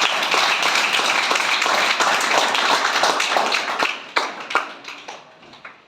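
Applause: a group of people clapping, thinning out about four seconds in to a few last separate claps before dying away.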